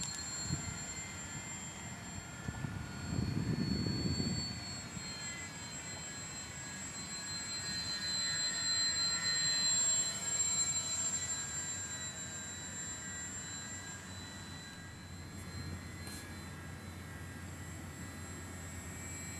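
Radio-controlled Monocoupe 90A park-scale model airplane flying overhead, its motor and propeller giving a steady high-pitched whine that drops slightly in pitch about four seconds in. A gust of wind rumbles on the microphone near the start.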